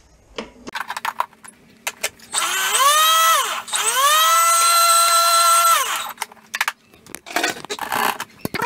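Thermomix motor run twice in short bursts, each time whining up in pitch to a steady high speed for one to two seconds before cutting off, spinning ground dog kibble and flour into a boilie base. Clicks and clatter of the lid being locked on come before it, and of the steel bowl being lifted out after.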